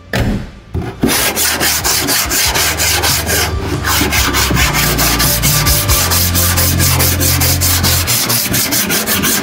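Flat body file being stroked across the bare steel quarter panel of a 1972 Holden Torana GTR XU1: a steady, regular rasping, several quick strokes a second, starting about a second in after a couple of short knocks. This is file finishing, skimming high metal off to show up and work out the remaining low spots before primer.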